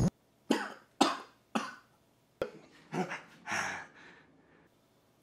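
A man coughing in short harsh bursts: three coughs about half a second apart, a sharp click, then three or four more coughs.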